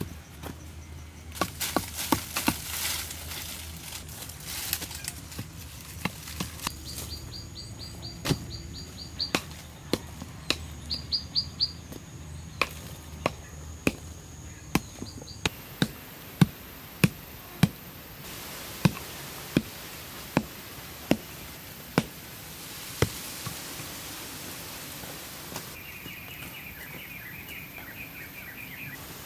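Wood being chopped: a series of sharp strikes, irregular at first, then a steady run about one to two a second through the middle. Birds chirp in short runs between the strikes and again near the end.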